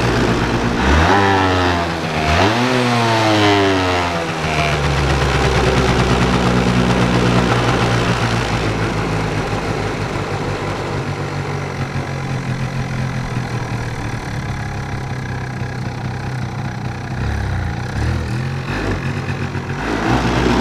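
Yamaha Mint scooter's two-stroke engine revved up twice in quick succession, then running on at a raised, hanging speed that is slow to come down. With the choke off the mixture is lean, so the revs hang high and sound smeared instead of dropping crisply to idle.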